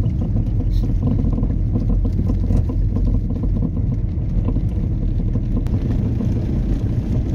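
A car's engine and tyre noise heard from inside the cabin as it drives slowly up a snow-covered lane: a steady low rumble.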